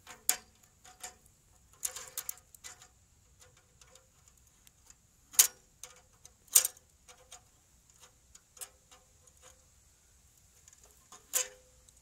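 Channel-lock pliers clicking and scraping on the aluminum tubing of an air-conditioner coil as they grip and twist at a repair joint, testing whether it will pop off; the repair holds. Scattered sharp clicks, a few louder ones in the middle and near the end.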